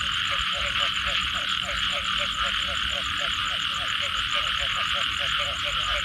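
A dense chorus of frogs calling after rain: short low croaks repeating about five times a second over a steady high-pitched din.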